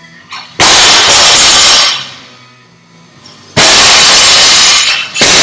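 Three loud crashes, each about a second long and loud enough to overload the recording. They start about half a second in, about three and a half seconds in, and just before the end.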